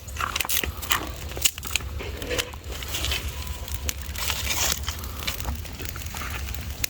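Irregular crackling and snapping of dry leaves and stalks being handled or crushed, over a steady low rumble.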